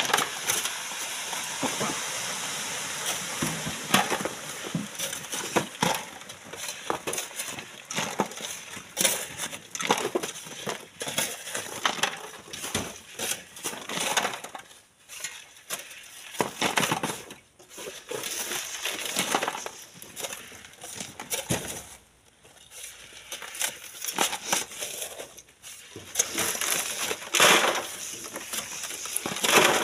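Gravelly sand and stones crunching and scraping in irregular bursts, with sharp knocks now and then, as sand is dug and moved by hand.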